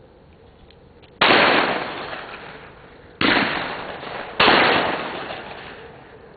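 Shotgun fired three times: a shot about a second in, a second one two seconds later and a third just over a second after that, each loud report fading away over a second or so.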